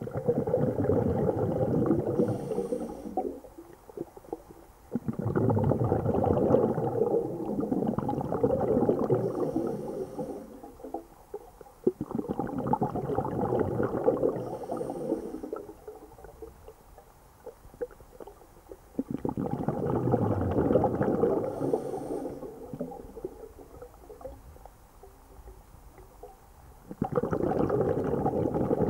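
A scuba diver breathing underwater: long bursts of exhaled bubbles gurgling past the microphone, repeating about every seven to eight seconds, with quieter gaps between them.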